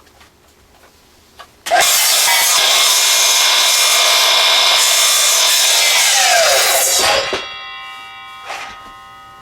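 A 12-inch power saw starts abruptly and cuts through a hewn log for about five seconds. Its pitch then falls as the motor is switched off and winds down, leaving the blade ringing with a few steady tones.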